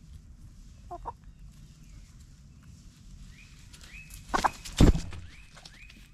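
Chickens calling while foraging: a brief call about a second in, then a run of short, high, evenly spaced calls, about three a second. Two loud thumps about four and a half seconds in.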